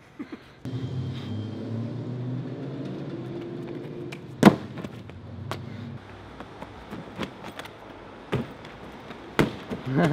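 A low vehicle-like rumble runs for the first half, then fades. It is broken by a few sharp slaps and thuds of a parkour runner's feet and hands striking pavement and a foam crash mat, the loudest about halfway through.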